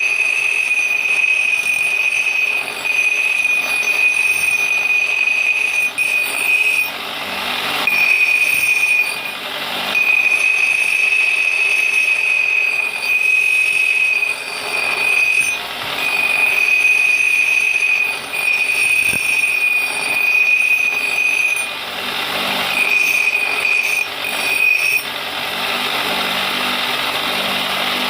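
Metalworking machinery running in a workshop, giving a high steady whine in stretches of one to three seconds, broken by short pauses, over a harsh grinding noise.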